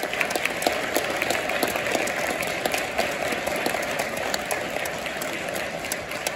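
Audience applauding, a dense patter of clapping with some sharp, close claps standing out, easing slightly near the end.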